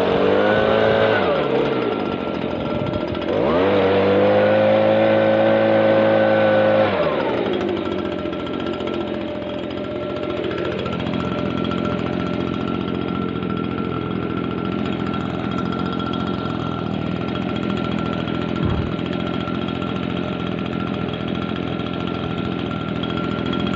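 Stihl BG56 leaf blower's small two-stroke engine being revved. It rises to a high rev held for about three seconds, then drops back to a steadier, lower running speed, with a constant high whine throughout.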